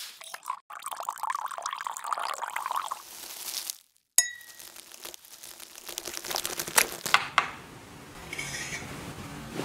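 Spoon and liquid in a glass mug: a few seconds of swirling and stirring, then a spoon clinking on the glass with a short ring about four seconds in, followed by a few sharp metal-on-glass clinks.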